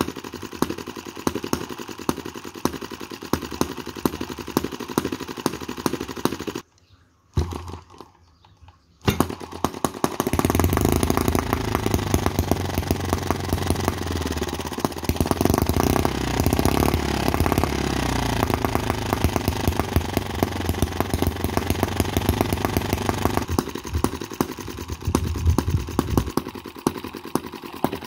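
Microcosm M25 model four-stroke sideshaft hit-and-miss gas engine running, a rapid train of small exhaust pops and mechanical ticking. About seven seconds in it drops to near silence for about two seconds, then comes back louder, firing steadily, and eases to lighter ticking near the end.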